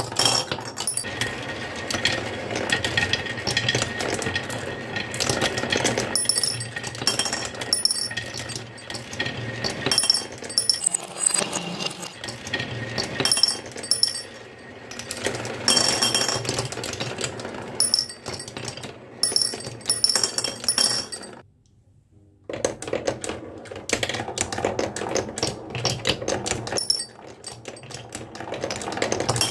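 Busy clinking and clattering of small hard parts over a steady low mechanical hum, broken by a brief silence about two-thirds of the way through.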